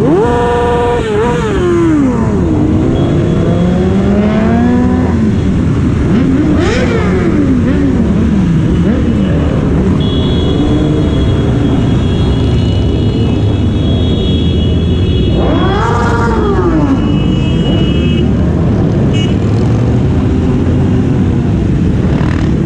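Several motorcycle engines running and revving up and down over and over, with the noise of traffic throughout.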